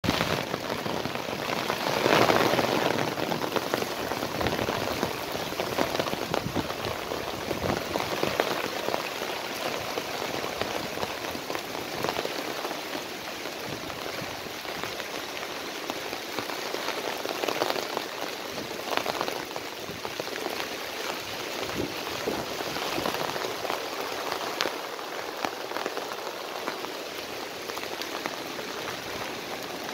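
Heavy rain falling steadily as a dense hiss of drops, with a louder swell about two seconds in.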